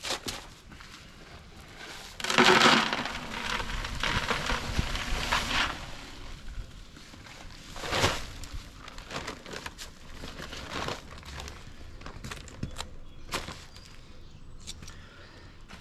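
Paper bag of concrete mix crinkling and rustling as it is handled, with a loud rushing noise for about three seconds about two seconds in, a sharp knock near the middle, and scattered clicks and rustles after.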